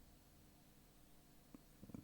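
Near silence: room tone with a faint steady hum and one faint click about one and a half seconds in.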